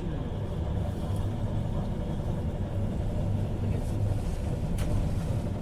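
KiHa 40 diesel railcar running, a steady low rumble, with one short sharp click near the end.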